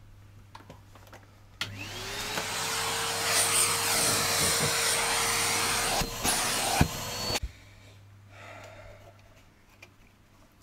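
Vacuum cleaner switched on about a second and a half in, its motor spinning up to a steady whine under a loud hiss of suction as the hose nozzle is worked over a foam sponge. It cuts off after about six seconds.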